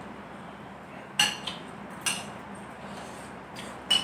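Metal spoons clinking against ceramic bowls while eating: four or so short, sharp clinks, the loudest about a second in.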